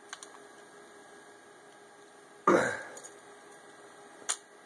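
Plastic light-bulb mounting plate being pried and twisted by hand: a few faint clicks at the start, a brief louder low grunt-like sound about halfway, and one sharp snap near the end, over a steady electrical hum.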